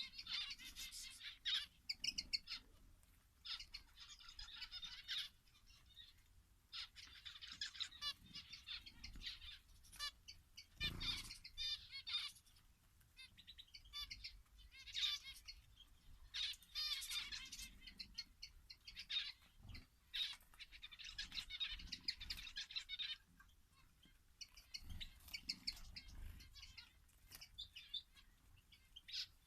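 Small finches in an aviary chirping and twittering in rapid bursts throughout, several birds at once, with a couple of soft low thumps about a third of the way in and again past the middle.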